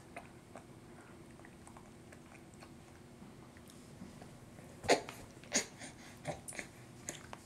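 A baby's mouth sounds while being spoon-fed first cereal: a handful of short smacks and clicks in the second half, after a few quiet seconds.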